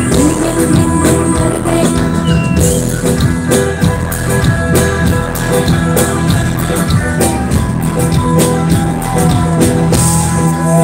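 A live band playing loud music over a stage sound system, with a steady drum beat.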